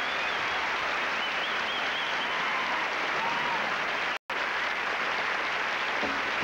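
Studio audience applauding steadily, with a few cheers rising over the clapping. The sound cuts out for an instant about four seconds in.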